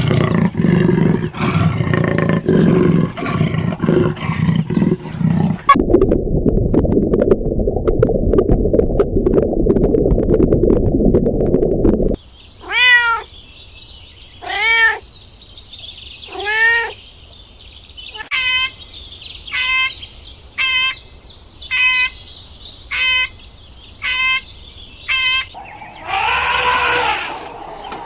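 Cat sounds in sequence. First comes low, rough, rumbling purring for about twelve seconds. Then three drawn-out meows that rise and fall, and a quick run of about eight short, high mews.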